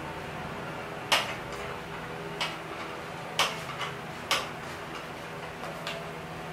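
A metal hand tool clicks sharply against the fasteners and plastic of a motorcycle's front headlight cowl as it is worked loose, about six irregular clicks. A steady low hum runs underneath.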